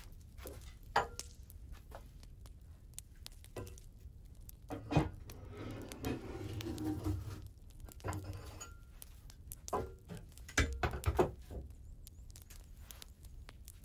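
Light knocks and clinks of things being handled, a dozen or so scattered irregularly, a few ringing briefly, with a stretch of rustling about six seconds in.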